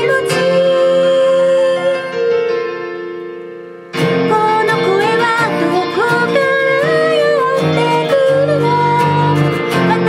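A woman singing to her own strummed Gibson J-45 acoustic guitar. A long held note opens, then the last chord rings and fades for about two seconds before the strumming and singing come back in about four seconds in.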